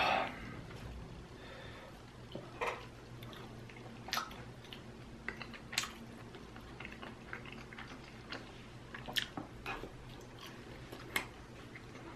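Chewing and biting into a fried dumpling, with a crisp crunch every couple of seconds between softer wet mouth noises.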